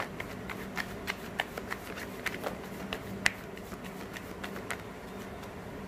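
Tarot deck being shuffled by hand: a run of irregular light card snaps and clicks, a few a second, the sharpest about halfway through, stopping near the end.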